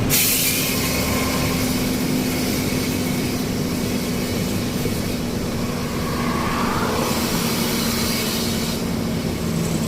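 Heavy truck's diesel engine running steadily, heard from inside the cab, with a short hiss right at the start.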